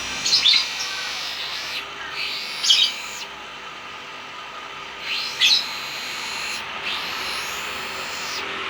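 Lovebird chirping in shrill bursts, three loud ones about two and a half seconds apart with fainter chatter between them.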